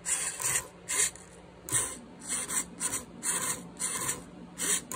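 A $2 hobby servo swinging a foam-board RC plane rudder back and forth through a wire pushrod. Each quick swing gives a short whirring buzz, about ten in a row at roughly two a second in an uneven rhythm.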